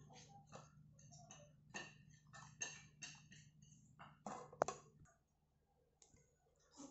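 Faint clicks and scrapes of a spatula serving fried rice onto a plate, several a second, with a sharper click a little past four seconds in and little after about five seconds.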